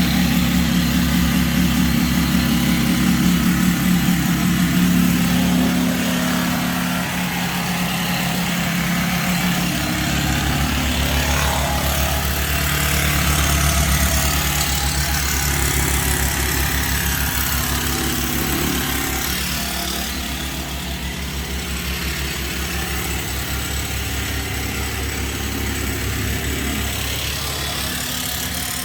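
A motor running steadily, its low hum drifting a little in pitch over a steady hiss.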